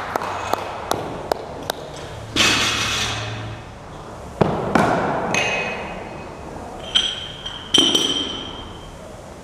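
Weight plates being stripped off a barbell and handled on a rubber gym floor: light clicks, a scraping slide as a plate comes off the sleeve, then thuds and metal clanks, some ringing briefly, as the bar and the small metal change plates knock together.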